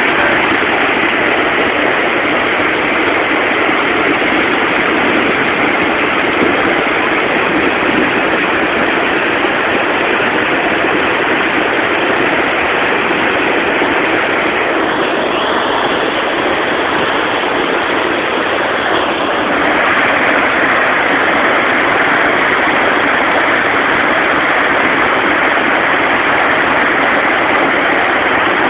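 Water rushing over a river weir: a loud, steady rush that changes little throughout.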